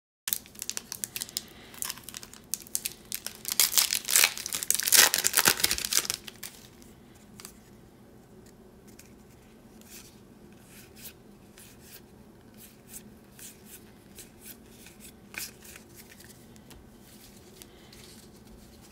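Foil trading-card pack wrapper being torn open and crinkled, loudest in the first six seconds. After that, only soft scattered clicks and rustles as the cards are handled.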